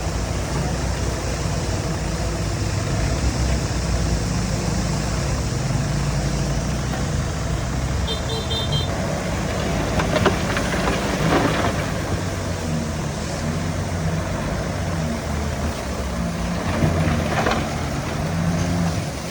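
Diesel engine of heavy earthmoving machinery running steadily, with a few metallic clanks about halfway through and again near the end. A brief faint beeping comes about eight seconds in.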